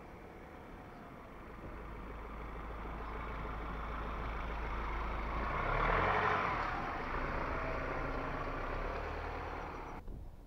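Ford Ranger Raptor pickup driving past over sand, engine and tyres. The sound grows steadily louder as the truck approaches, is loudest as it passes about six seconds in, then eases off and cuts off suddenly near the end.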